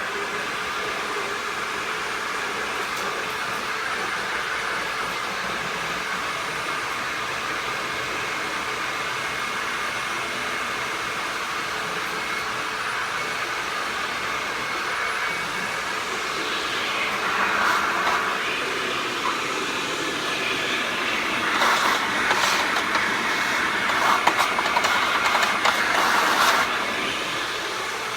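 Hoover WindTunnel upright vacuum cleaner running steadily with a whooshing motor noise. It grows louder with a crackling rattle twice: briefly about 17 seconds in, and for several seconds near the end.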